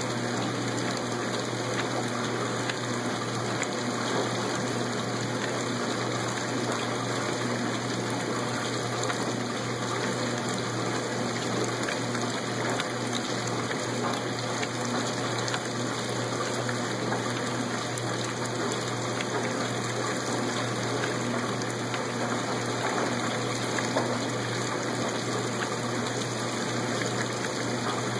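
1986 Lady Kenmore 90 series top-loading washer agitating a sudsy load: water churning and sloshing steadily over a constant motor hum.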